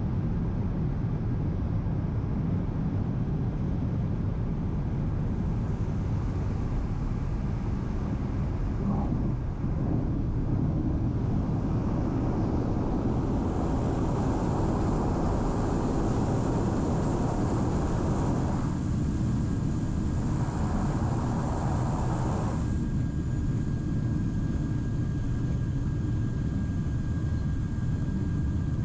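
Steady low drone of an aircraft cabin in flight, with a faint steady whine above it. About ten seconds in, a brighter hiss joins for roughly ten seconds, then cuts off.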